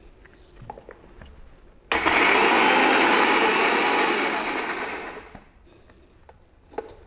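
Electric mixer grinder running in a short burst, coarsely grinding boiled cabbage and cauliflower with a little water. It starts abruptly about two seconds in and winds down about three seconds later. A few light clicks come before it and near the end.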